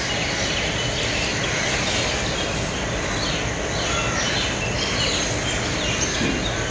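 Container freight train running past on the adjacent track: a steady noise of wagons and wheels on rails, with birds chirping faintly over it.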